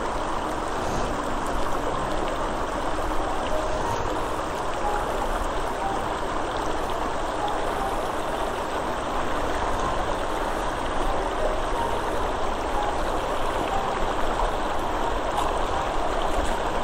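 Glacier-fed mountain stream rushing steadily over stones.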